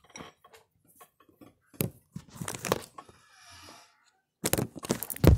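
Handling noise from the phone's microphone as the phone is moved and repositioned: bursts of rustling and scraping about two seconds in, then again near the end with a loud bump.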